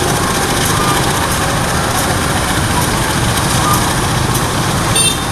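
KAI diesel-electric locomotive running light, its diesel engine running steadily as it rolls slowly along the track. Small clicks sound throughout, and a brief sharp squeak comes near the end.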